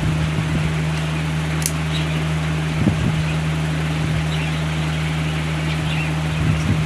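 Steady low mechanical hum with a constant tone and a hiss over it; a faint click comes under two seconds in.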